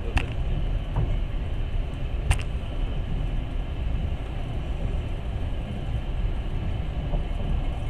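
Moving passenger train running along the track, a steady low rumble with two sharp clicks in the first few seconds.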